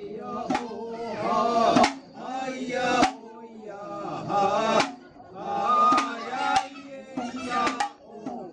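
Kagura chant: a man's voice singing in long, drawn-out phrases, punctuated by sharp percussion strikes about once a second.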